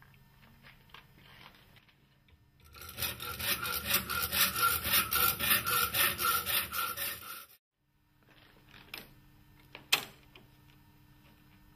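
Hacksaw cutting through a metal ROTO NT window-fitting rail clamped in a bench vise, in rapid, even strokes with a metallic ring; the sawing starts about three seconds in and stops abruptly a few seconds later. A single sharp click comes near the end.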